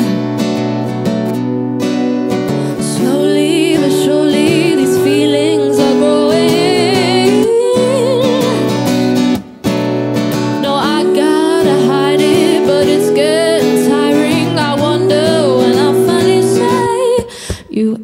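Strummed acoustic guitar under a woman singing long held notes and wavering vocal runs. The music stops short for a moment about halfway through and again near the end.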